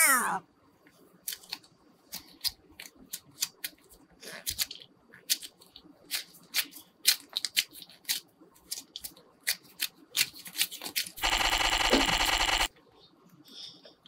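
Yellow play dough being kneaded and squeezed by hands, giving a run of irregular sticky crackles and clicks. Near the end, a loud buzzing rattle lasts about a second and a half.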